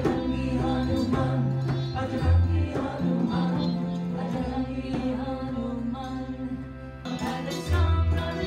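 Live devotional mantra music: harmonium with sustained low upright bass notes, tabla and singing. About seven seconds in it cuts to another song, led by acoustic guitar.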